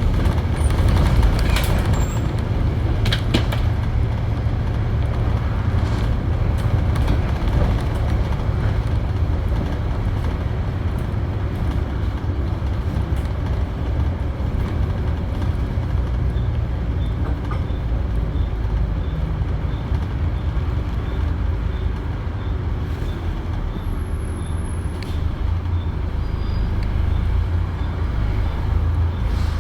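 Volvo B7TL double-decker bus's turbo-diesel engine running steadily under a deep, even rumble, with a few sharp rattles in the first few seconds. A faint regular tick, about twice a second, comes in past the halfway point.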